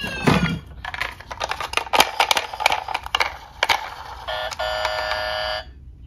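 Plastic toy police cars clattering and knocking against each other in a cardboard box as one is picked out. Then the toy police car's electronic sound module sounds a steady buzzing tone, a short one and then a longer one of about a second and a half.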